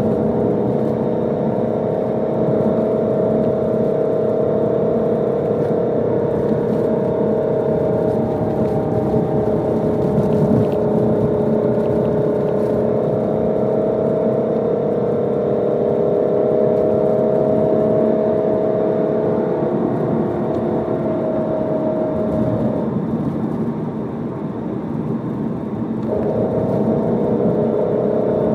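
Car exhaust running steadily with a droning tone, the abnormal noise from the muffler. The drone fades for a few seconds near the end and then comes back.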